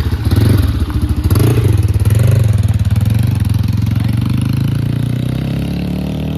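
Motor scooter engine running, swelling louder in the first two seconds as it revs, then settling to a steadier drone.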